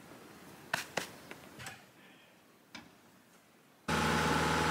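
A few light, sharp knocks over near-quiet. About four seconds in, a Bobcat T180 compact track loader's diesel engine comes in, running steadily and much louder.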